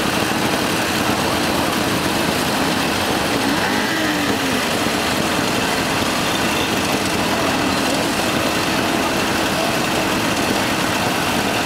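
A large crowd of two-stroke mopeds idling and revving together, making a dense, steady engine buzz. Single engines can be heard now and then rising and falling in pitch as they rev.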